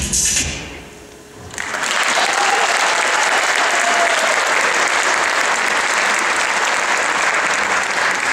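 Recorded dance music cuts off shortly after the start. After a brief lull, an audience breaks into steady applause that holds to the end.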